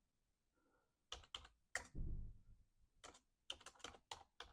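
Computer keyboard keys and clicks pressed in short, irregular runs, with a soft low thud about two seconds in.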